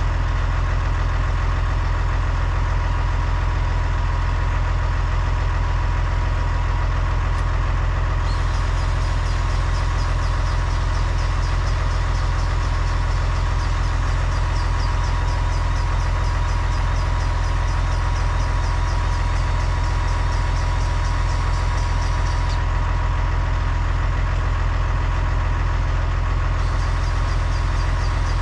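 Massey Ferguson tractor's diesel engine idling steadily. A faint, rapid high-pitched ticking joins it from about eight seconds in until about twenty-two seconds, and again near the end.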